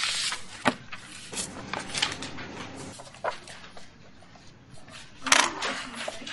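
Scattered knocks, clicks and rustles of paper and objects being handled on a desk, with the loudest clatter about five seconds in.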